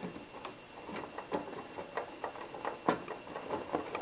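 Small screwdriver driving a self-tapping screw into the plastic cab of a 1/14 Tamiya Grand Hauler model truck: a run of irregular small clicks and creaks as the screw threads in, the loudest nearly three seconds in.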